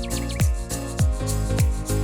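Background music with a steady beat: a thumping kick drum about three times a second under sustained synth chords.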